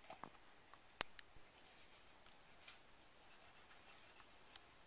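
Faint scraping and rubbing of a fillet knife and hands working a fish on a cutting board, with one sharp click about a second in and a few soft ticks.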